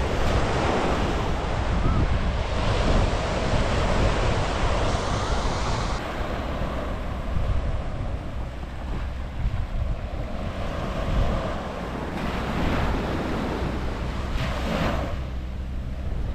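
Small waves washing up and drawing back on a sandy shore in swells every few seconds, with wind rumbling on the microphone.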